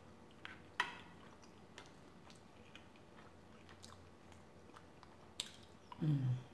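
Close-miked chewing of a mouthful of rice and curry, with small wet mouth clicks, and a few sharp taps as a wooden spoon scoops across the plate. A short low hum of voice near the end.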